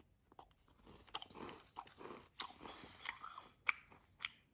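A person chewing a mouthful of KitKat cereal in milk close to the microphone: irregular crunching with sharp crackles.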